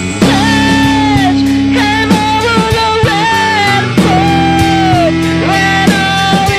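Hardcore punk song from a recording: a held, melodic singing line over guitar, bass and drums.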